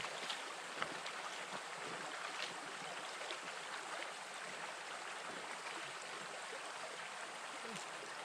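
River water flowing steadily at a ford, an even rushing with a few faint clicks.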